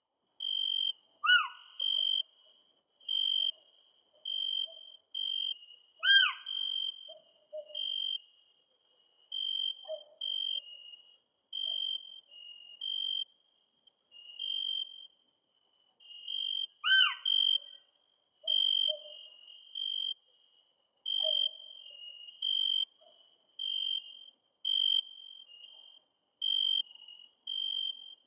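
Night birds calling: a steady run of short, high, clear notes, a little under a second apart and alternating slightly in pitch. Four times, a loud falling whistle cuts in, including once near the end. Soft lower notes are scattered underneath.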